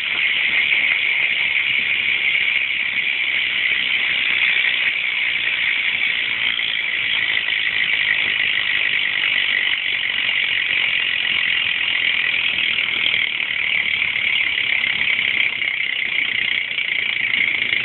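Shadow Raptor rear cassette hub on a BMX bike freewheeling as the rear wheel spins: a steady, high, loud ratcheting buzz from the pawls.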